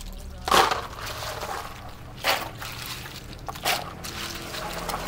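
A plastic dipper scooping from a large water jar and pouring over apple snails in a plastic basin, with three splashes about a second and a half apart, to rinse the snails.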